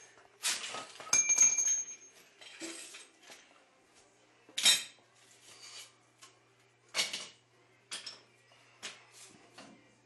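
Metal hand tools clinking and clattering as they are handled and set down on a concrete floor. There is a ringing clatter about a second in, sharp single clinks a little before halfway and again later, and lighter taps toward the end.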